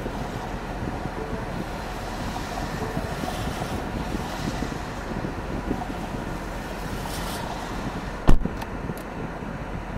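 Steady noise inside a stopped car's cabin, with tyre hiss from traffic passing on the wet road outside swelling twice. A single sharp thump about eight seconds in.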